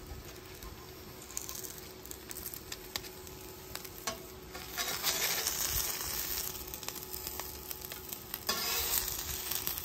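Corn tortilla tacos frying in oil on a flat-top griddle, sizzling quietly, with metal spatulas scraping and tapping on the steel plate as a taco is folded over.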